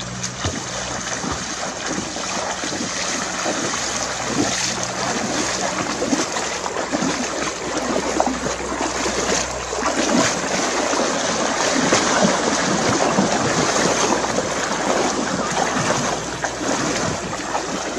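Two people wading through knee-deep river water, their legs splashing continuously and unevenly.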